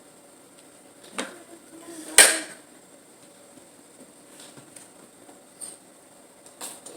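Kitchen clatter: a few sharp knocks and clinks of utensils against kitchenware, the loudest knock about two seconds in, with lighter taps near the end.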